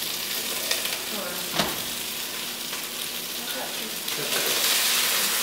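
Cubes of lamb sizzling as they brown in rendered lamb fat in an enamelled cast-iron Dutch oven, with a spoon stirring among them and knocking lightly against the pot a couple of times. The sizzling gets louder near the end.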